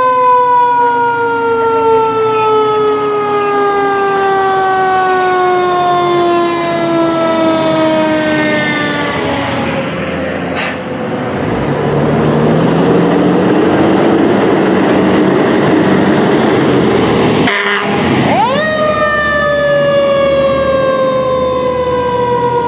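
Fire truck sirens. A siren winds up sharply and then falls slowly in pitch for about nine seconds, over the running of a truck engine, with a sharp crack about ten seconds in. Near the end a siren winds up again and falls slowly.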